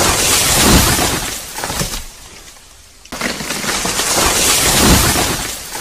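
A dubbed crash sound effect, a loud cracking and breaking, heard twice about three seconds apart, each fading away over about two seconds.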